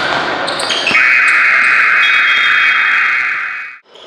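Basketball game-clock horn blaring one long steady note for about three seconds, starting suddenly about a second in and cutting off abruptly.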